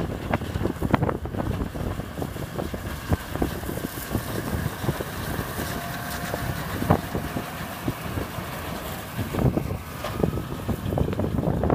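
Farm machinery running in a field, with wind buffeting the microphone and scattered knocks and bumps.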